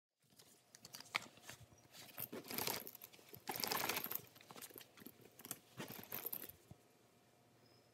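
Hands handling a soft zippered fabric bag: faint rustling and small clicks from the zipper pull and fabric, with two longer rasps about two and a half and three and a half seconds in.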